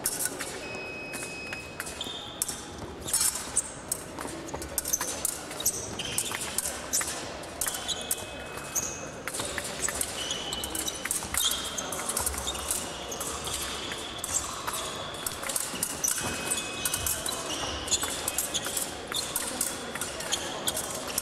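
Épée fencing bout: blades clicking and clashing, and fencers' feet tapping and stamping on the piste, irregular and sometimes in quick flurries, in an echoing hall. Short high tones sound now and then.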